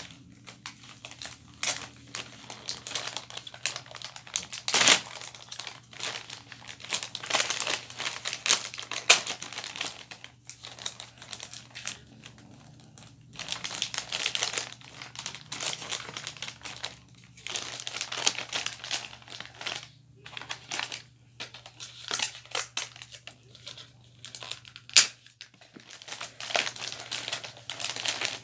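Gift-wrapping paper crinkling and rustling as it is handled and folded, in irregular bursts with short pauses and a few sharper crackles.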